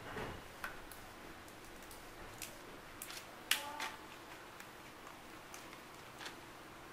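Scattered small plastic clicks and taps as ink bottles and the caps of an inkjet printer's refillable ink tanks are handled, the loudest click about three and a half seconds in, followed by a brief squeak.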